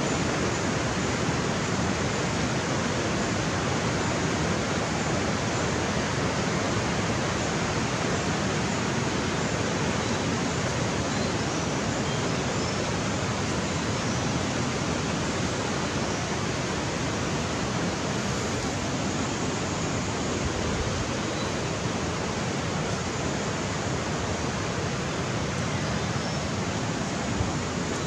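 River water rushing over rocks, a steady, even hiss.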